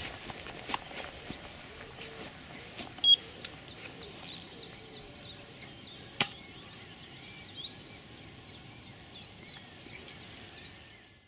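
Outdoor lakeside ambience with small birds chirping throughout, a short beep about three seconds in and a sharp click around six seconds; the sound cuts off abruptly at the end.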